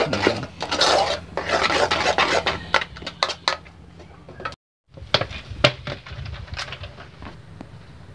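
A metal spoon scraping and stirring thick polenta in an aluminium saucepan, clinking against the pan. After a cut about halfway through come a few separate sharp clinks.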